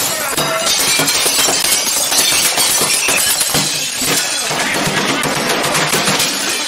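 Ceramic plates and glass being smashed repeatedly, crockery shattering again and again with shards clattering, a dense run of crashes with no let-up.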